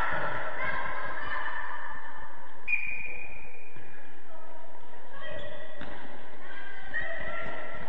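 Futsal match play on an indoor court: trainers squeaking on the hall floor in short high notes, scattered knocks of the ball being kicked, and players calling out.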